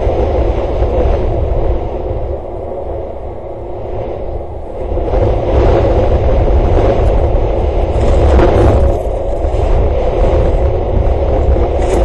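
Wind rumbling and buffeting on the microphone, rising and easing in gusts.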